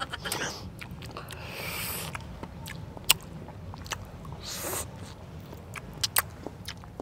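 Close-up mouth sounds of people eating juicy fruit pieces: wet chewing with scattered sharp smacks and clicks, and two short hisses about one and a half and four and a half seconds in.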